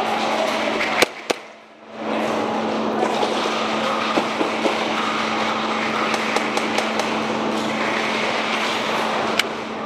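Airsoft guns firing: scattered sharp cracks and clicks, two loud ones close together about a second in and another near the end, over a steady hum and hiss.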